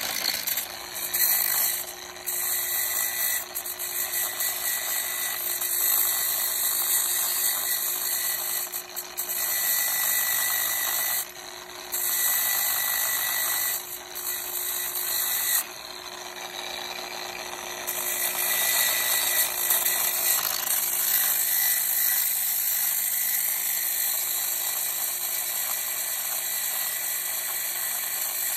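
Variable-speed angle grinder with a zirconia flap disc grinding a zinc boat anode, working against its hard white zinc hydroxide crust. It runs steadily, with a few brief dips in level. The crust is hard and slow to grind through.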